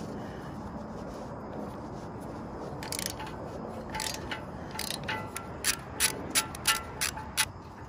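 Socket ratchet clicking in a run of sharp metallic clicks, about two or three a second, in the second half, as it loosens a motorcycle's 12 mm exhaust header bolts.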